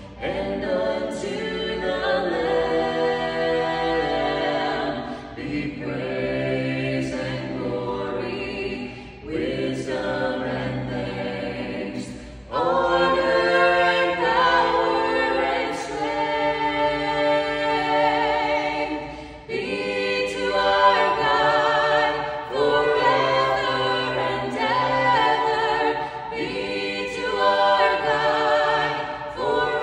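Four voices, two men and two women, singing a cappella in harmony with no instruments, in held phrases with short breaks between them. The singing gets louder about twelve seconds in.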